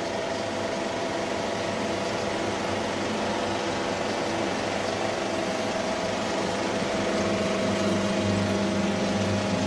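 35mm film projection room machinery running steadily: an even mechanical hum with several constant tones under a hiss.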